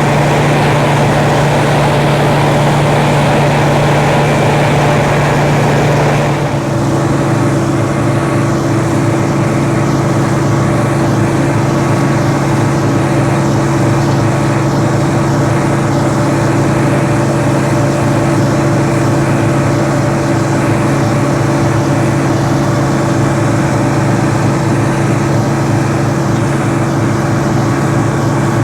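Old combine harvester running steadily under load, a loud, constant engine hum. Its tone shifts about six and a half seconds in.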